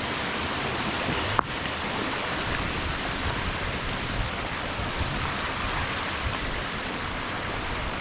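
Small mountain stream rushing steadily alongside the path. A single short click about a second and a half in.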